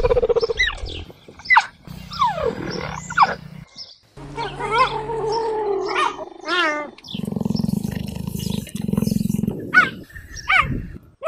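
Cheetah vocalizations: a run of short high chirps and yelps, many sweeping up or down in pitch, with stretches of low pulsing rumble between and beneath them.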